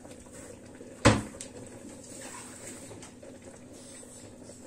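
A single sharp knock about a second in, over faint steady room noise with a low hum.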